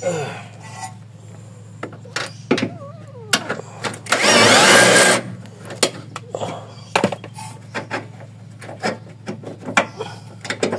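Impact wrench running in one loud burst of about a second near the middle, spinning out the already-loosened 19 mm bolt of a lower control arm bushing. Scattered clicks and knocks of tools and metal parts being handled before and after.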